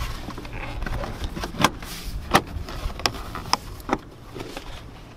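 Plastic interior trim piece being pressed back into place by hand, with rustling handling noise and about five sharp clicks as its clips snap in.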